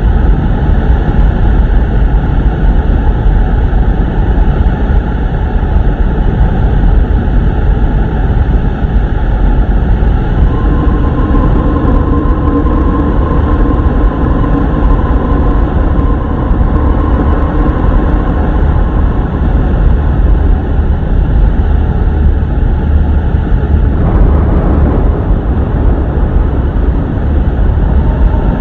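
Steady, loud relaxation noise track: a constant even rush with its weight in the low end, presented as a calming noise that is neither white nor brown noise. Faint held tones join in about ten seconds in and drop out about twenty-four seconds in.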